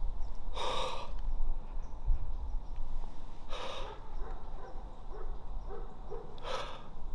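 A man breathing hard: three long, heavy exhales about three seconds apart. It is a hunter catching his breath in excitement just after shooting a buck.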